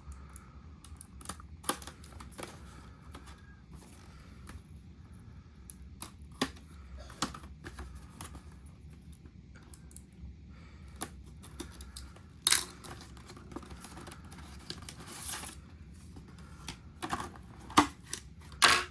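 Toy packaging being opened by hand: scattered clicks and taps of handling, with two longer rustling, tearing noises about twelve and fifteen seconds in and a few sharp clicks near the end.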